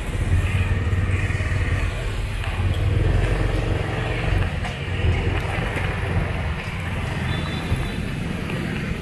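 Motorbike and car traffic on a busy city street: engines running steadily, with a low engine hum that is strongest in the first half and eases off after about five seconds.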